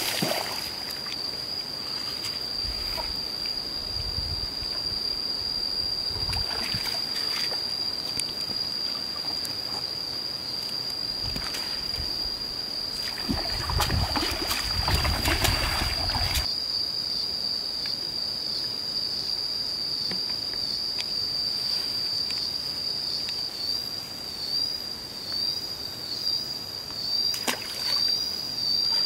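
Hooked fish thrashing and splashing at the water's surface as it is fought on a pole, in several bouts, the heaviest from about 13 to 16 seconds in, which stops abruptly. A steady high-pitched tone runs throughout.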